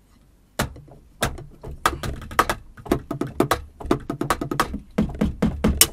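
Wooden drumsticks striking the pads of a Yamaha DTX6K-3X electronic drum kit: a quick, irregular run of dull taps and thuds, starting about half a second in. Only the acoustic sound of stick on pad is heard, with no drum sounds from the module.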